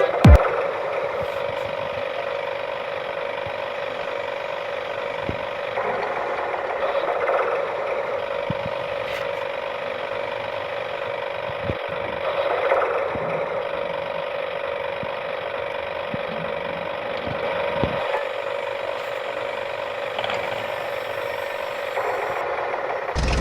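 Small electric motor and plastic gears of a toy vehicle whirring steadily at one even pitch, with a few faint clicks.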